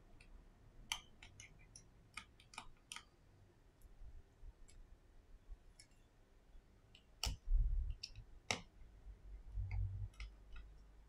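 Faint, scattered small clicks and ticks of a precision screwdriver working the tiny metal screws and bracket inside an opened iPhone XS. Two sharper clicks come about two thirds of the way through, with soft low bumps of the phone being handled around them and again near the end.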